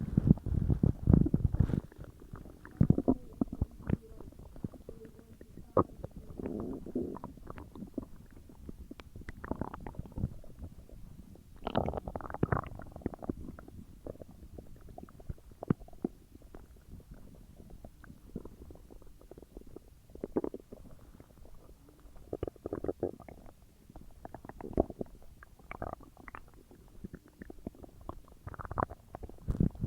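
Human stomach and intestines gurgling and rumbling while digesting a large meal, in irregular bouts of bubbly gurgles, loudest in the first couple of seconds and again around twelve seconds in.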